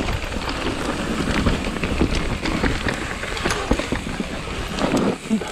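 Mountain bike descending fast over loose forest dirt: tyres rolling and skittering, with a constant run of clicks and rattles from the bike over the bumps, and a low rumble of wind on the microphone.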